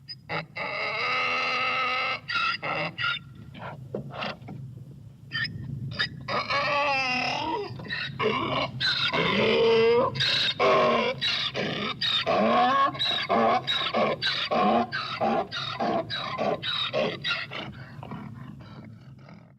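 Donkey braying: repeated hee-haw calls, loudest in the second half, with a quick back-and-forth rhythm that trails off near the end.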